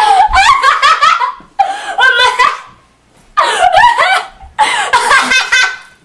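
A girl laughing hard in four loud bouts of rapid ha-ha pulses, with short breaks for breath between them.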